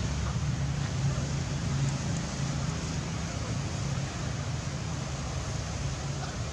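Steady outdoor background noise: a low rumble with an even hiss above it, with no distinct events.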